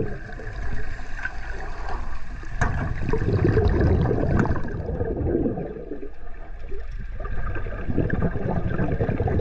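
Water sloshing and gurgling against a shark-diving cage, heard through a camera at and just below the surface, swelling and ebbing in surges. There is one sharp knock about two and a half seconds in.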